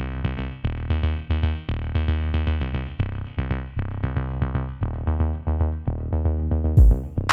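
Electronic background music: repeated synthesizer chords over a steady bass line, with heavier drum hits coming in near the end.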